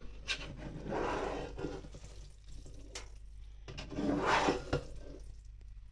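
A spatula scooping and turning cooked rice in a nonstick wok: two rustling scrapes, about a second in and about four seconds in, with a few light clicks of the spatula against the pan.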